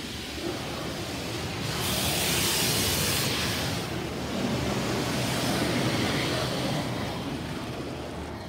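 Mark VII soft-touch automatic car wash spraying water over the car, heard from inside the cabin. A loud hiss swells for about a second and a half, about two seconds in, over a steady low rumble.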